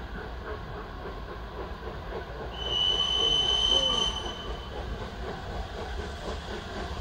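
Passenger coaches rolling past with a steady rumble and wheel clatter. About two and a half seconds in, a high steel-wheel squeal rings out on one steady pitch for nearly two seconds, then stops.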